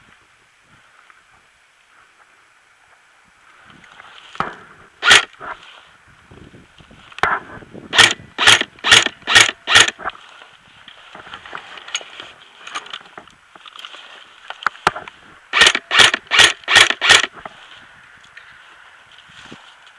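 Airsoft electric gun firing single shots in quick strings: a few shots, then about five in under two seconds, and later another run of about five. Each shot is a sharp, loud clack.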